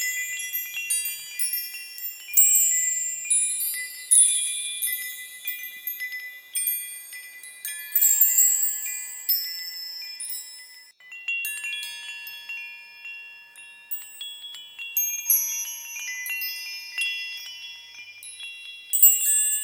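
High-pitched metal wind chimes tinkling at irregular moments, the strikes overlapping and each note ringing on and fading.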